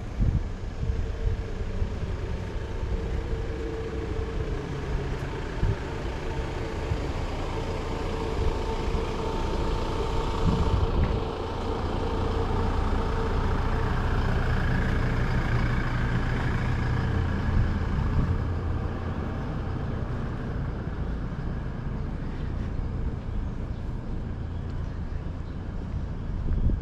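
Street traffic: a motor vehicle drives past, growing louder toward the middle and fading away in the second half, over a steady low rumble.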